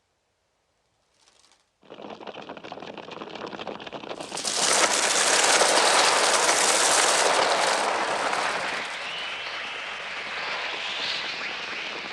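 A flock of crows bursts into the air with a dense rush of wingbeats about two seconds in, swelling to a loud, frantic din about four seconds in, with shrill wavering cries over it near the end. The film's bird sounds were made electronically on a Mixtur-Trautonium rather than recorded from real birds.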